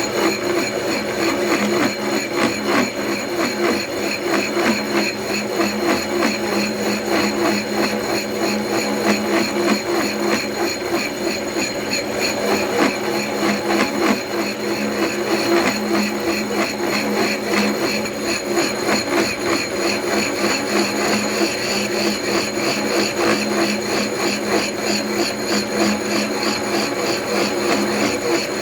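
Milling machine taking a cut in metal: a steady motor hum with a fast, even pulsing from the cutter biting into the work, one pass of repeated step-down roughing.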